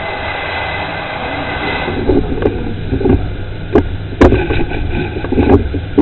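Steady workshop background noise, then from about two seconds in a run of irregular metal knocks and clanks, the loudest a little past the middle, typical of tools and parts being handled on a stripped engine.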